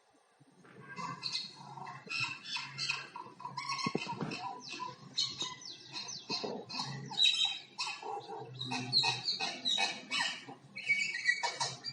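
Common myna calling in a rapid, varied run of many short notes, starting about a second in.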